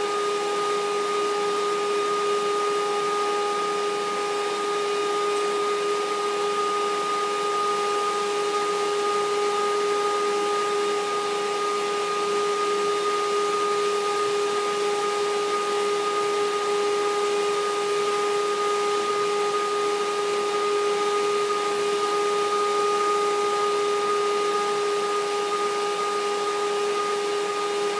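Upright vacuum cleaner running steadily with a constant whine, its hose wand in use.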